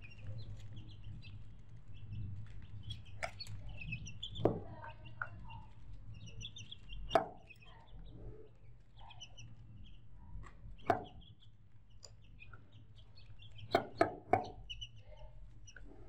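Chickens clucking and calling in short high notes, with a few sharp knocks scattered through and three in quick succession near the end, over a steady low hum.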